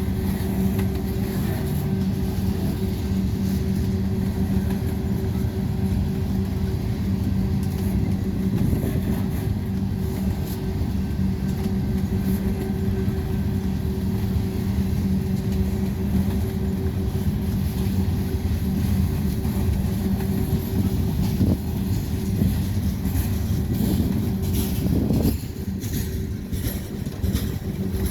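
Freight train rolling past: a steady low rumble with a constant hum and scattered rail clicks, easing slightly about 25 seconds in.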